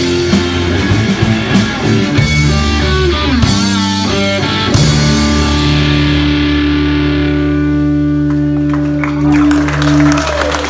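Rock trio playing live, with distorted electric guitar, bass and drums, running through a busy closing phrase. About five seconds in they land on a final chord that is held and left ringing out, its top slowly fading, with a few more drum and cymbal hits near the end.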